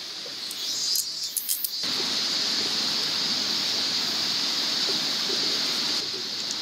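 Steady outdoor din of cicadas shrilling over a rushing river. It comes in abruptly about two seconds in; before that it is quieter, with a few light crackles.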